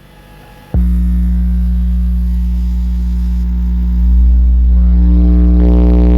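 A 60 Hz bass test tone (a "burp") played through six Soundstream XXX 15-inch subwoofers driven by a Taramps MD 12000.1 amplifier into a 0.47 ohm load. It cuts in abruptly under a second in as a loud, steady low hum, grows louder about four seconds in, and turns harsher near the end.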